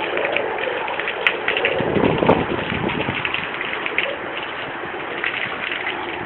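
Heavy storm rain drumming steadily, thick with sharp little hits.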